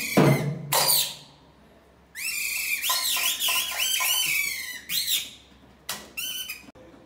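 A kathputli puppeteer's mouth reed whistle (boli) squeaking the puppets' voices in fast, high, warbling chirps, in several runs. Two loud strikes near the start.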